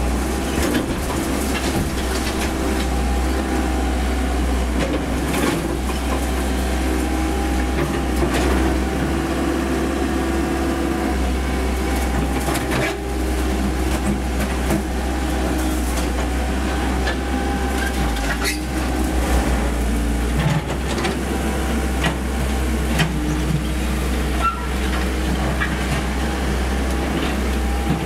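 Komatsu PC78US mini excavator's diesel engine and hydraulics running steadily under working load. Scattered knocks and crunches of breaking concrete and falling rubble come through it.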